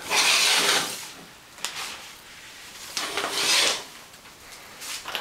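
Two loud sliding scrapes, each under a second, about three seconds apart, with a few faint clicks between them.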